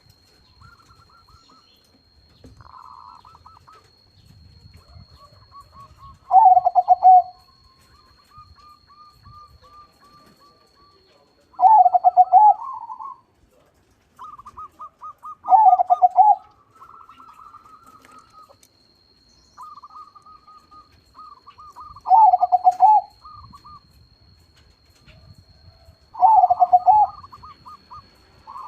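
Crossbred perkutut (zebra dove) singing: five loud coo phrases a few seconds apart, with softer, quick stuttering runs of notes in between.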